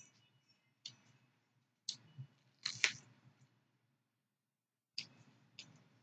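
Crisp crunches of raw vegetable strips being bitten and chewed: a string of sharp, separate crunches, the loudest about three seconds in, with a pause before two more near the end.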